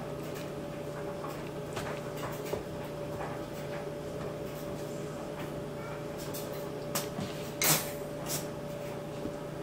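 Light scattered taps and clicks from young goat kids' hooves moving on a wooden floor, with one sharper knock about three-quarters of the way through, over a steady low hum.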